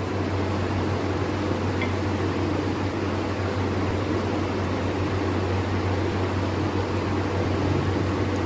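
Steady hum of a running electric fan, with a strong low drone and an even whooshing noise above it.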